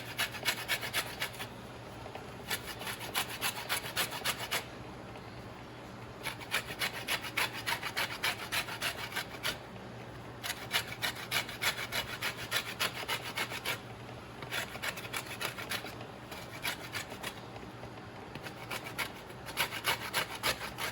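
Citrus peel being grated: quick rasping strokes across a grater in about seven bursts of a few seconds each, with short pauses between.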